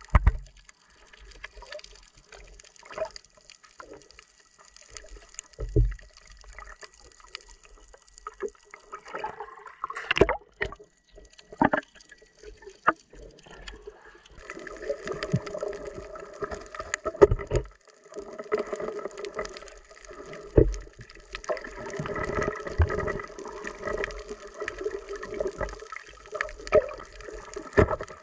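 Underwater sound picked up by a diving camera: muffled water noise with scattered sharp knocks and bumps, and a steady hum that comes in about halfway through.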